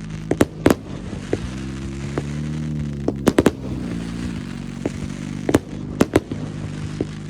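Fireworks going off in a show: aerial shells bursting as sharp booms at irregular intervals, about a dozen, some in quick pairs and triples. Underneath runs a steady low drone that rises in pitch for a couple of seconds in the middle and then settles back.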